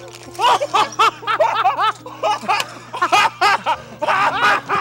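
Men laughing excitedly in rapid bursts, several rising-and-falling peals a second.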